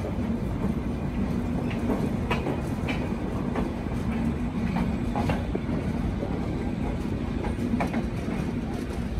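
Benapole Express passenger train running: a steady low rumble of wheels on track, with scattered sharp clicks.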